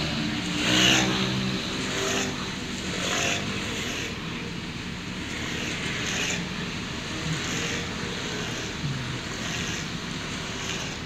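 Steady hum inside a car cabin while the car stands in rainy traffic, with a faint low voice in the first few seconds.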